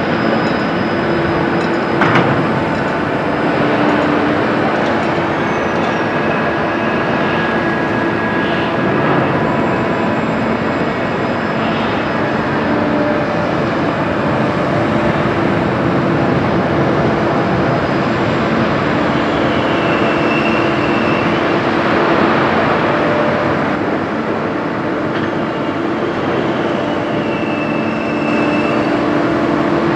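Rail-mounted container gantry crane working while it hoists a container: a steady machinery noise with a humming tone, a knock about two seconds in, and two brief high squeals later on.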